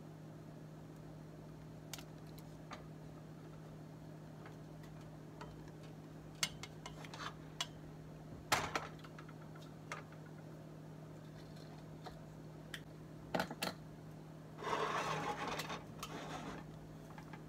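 Scattered clicks and knocks of a plastic paddle and stainless steel pot being handled on an electric coil stove, over a steady low hum. A louder, noisier stretch of about two seconds comes near the end.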